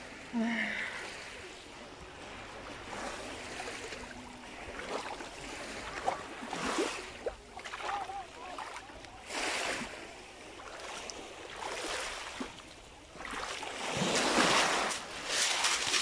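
Sea waves breaking on the shore and washing back, swelling every two to three seconds, with the biggest wave near the end. Faint voices in the background.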